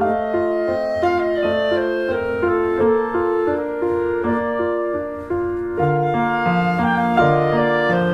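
Instrumental background music: a tune of evenly paced notes over a bass line that steps lower about six seconds in.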